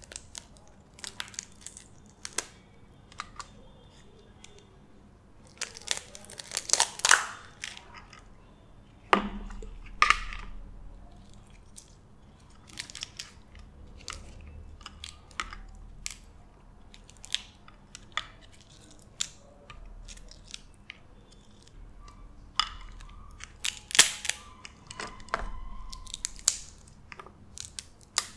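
Cooked blue crab shell being cracked and pulled apart by hand: irregular sharp snaps and crackles that come in clusters, with quieter picking and chewing between them.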